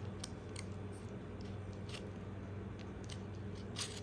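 Knife blade run around the edge of a leche flan in its mold, giving a few faint light scrapes and clicks, with a slightly longer scrape near the end, over a steady low hum.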